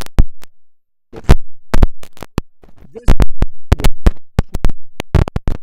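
Crutch tips and shoes crunching and tapping on an icy, gritty road as a one-legged man walks on crutches. The crunches and taps are sharp and irregular, several a second, and come thickest in the second half.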